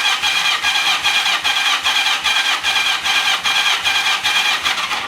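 Yamaha XJ650 four-cylinder engine cranked on its electric starter with the spark plugs out and the throttle wide open, for a compression test on the last cylinder. It is a steady whirring crank with an even beat of about four to five pulses a second, stopping right at the end; the gauge reads just over 125 psi.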